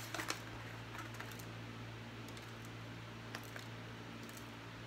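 Hands flexing and peeling a silicone soap mould and its paper liner off a hardened solid shampoo bar. Faint scattered clicks and rustles sound over a steady low hum.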